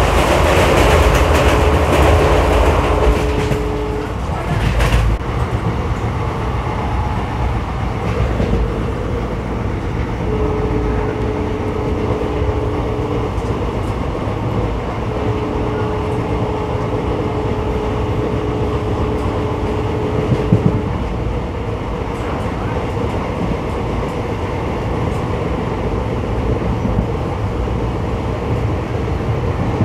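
ICF passenger coach running along the track, heard from on board: a steady low rumble of wheels on rails with occasional clicks, louder for the first few seconds. A steady two-note tone sounds three times: near the start, again about ten seconds in, and from about fifteen to twenty-one seconds.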